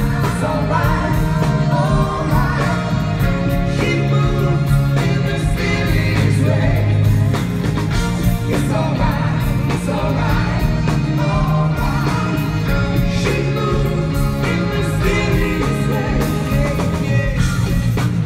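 Live band playing a rock song, with electric guitars, bass, keyboards and drums under a male lead vocal.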